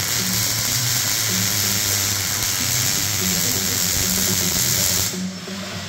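A loud, steady hiss that cuts off suddenly about five seconds in, over background music with a pulsing bass.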